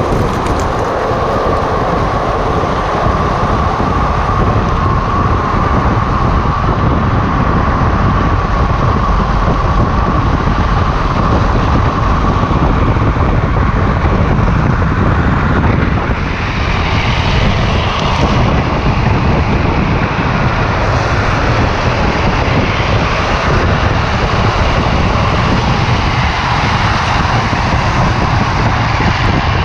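Steady wind rush over the camera microphone, mixed with the rolling roar of an unpowered drift trike's wheels on asphalt during a fast downhill run. A steady hum runs through the first half, and a brighter hiss joins about halfway through.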